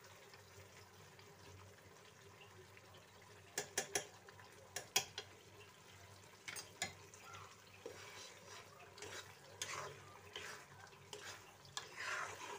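A steel spoon stirring and scraping through thick pea-and-onion masala in a kadhai, with butter melting into it over a low sizzle. A few sharp clinks of the spoon against the pan come in the middle, followed by softer scraping.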